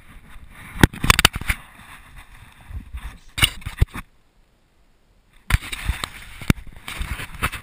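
Footsteps crunching and rustling through dry fallen leaves, with irregular sharp knocks and crackles. The sound drops away almost to nothing for about a second and a half past the middle, then the rustling starts again.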